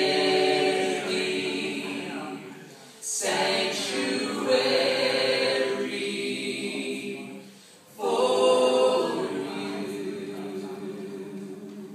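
Vocal group singing in close harmony without accompaniment, in three sustained phrases that each start strongly and fade away.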